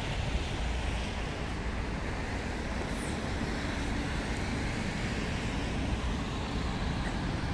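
Steady low rumble of city road traffic, with no single vehicle or event standing out.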